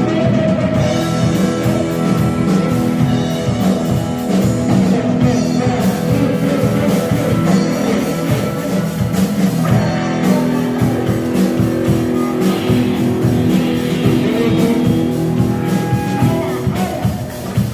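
Live rock band playing loud, steady music with electric guitar and drums during a sound check.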